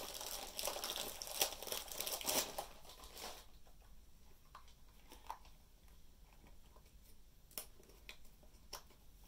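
Plastic packaging crinkling and rustling as a kit part is unwrapped. It goes on for about three seconds, then gives way to a few faint taps and clicks.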